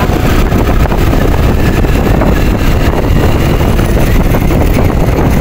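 Steady wind noise buffeting the microphone of a moving motorcycle, mixed with the bike's engine and road noise.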